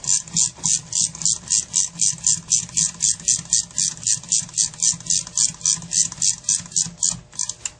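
Rapid, even clicking of a ratcheting hand tool working on a Carter AFB carburetor's top, about four or five clicks a second, keeping a steady pace.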